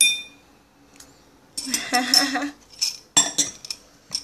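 Clinking and clatter of tableware: a sharp ringing clink at the start, then several short clattering bursts.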